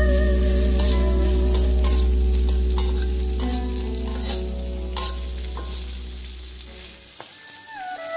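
Runner beans sizzling as they are stir-fried in a wok, a metal spatula scraping and clattering against the pan about once a second. A loud low hum runs underneath and fades out about seven seconds in.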